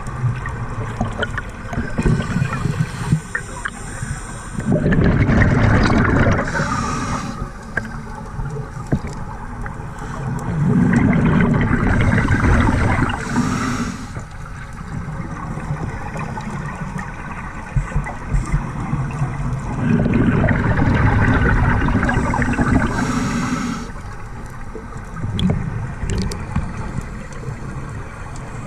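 Scuba diver breathing through a regulator underwater: bubbly gurgling surges of exhaled air lasting two to three seconds, about every seven to eight seconds, with a short hiss between them.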